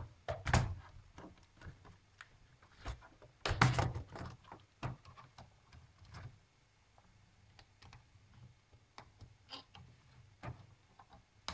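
Scattered plastic clicks and light clatter from a laptop keyboard being lifted off its deck and handled, with the loudest clatter about three and a half seconds in.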